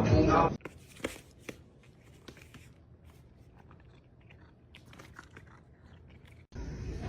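Faint, scattered crunching clicks over quiet room tone. Louder soundtrack audio is present for the first half-second and returns about half a second before the end.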